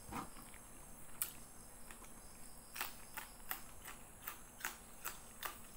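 Close-miked eating sounds: a person chewing fish and rice, with soft wet mouth smacks and clicks coming irregularly, about one or two a second, over a faint hiss.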